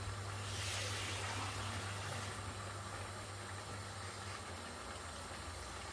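Pan of cabbage bhaji simmering after water was added: a soft hiss, strongest in the first two seconds, over a steady low hum.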